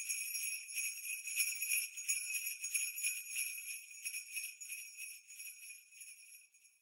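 Jingle bells shaking in a continuous high shimmer, left ringing on their own at the end of a Christmas music track and fading out gradually.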